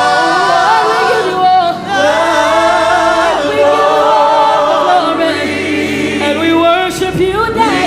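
A congregation singing a gospel worship chorus a cappella, with long, wavering notes that slide up and down in pitch.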